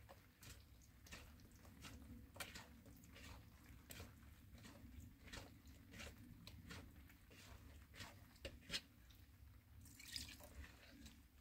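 Bread dough being kneaded by hand in a plastic bowl: faint, irregular wet squelches and slaps. About ten seconds in, water is poured from a plastic jug onto the dough.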